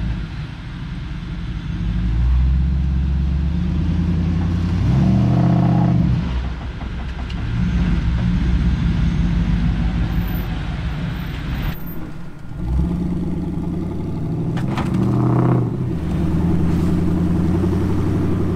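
Off-road recovery rig's engine running under load as it pulls a stuck SUV out of mud on a tow strap, revving up in two surges about five and fifteen seconds in, with a brief drop just before the second.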